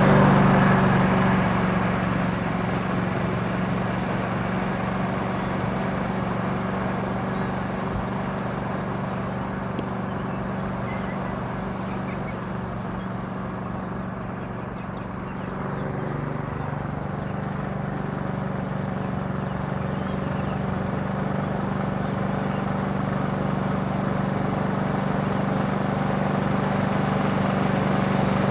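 Rotary lawn mower engine running steadily with a constant hum, fading in the first few seconds and growing louder again in the second half as it moves away and comes back.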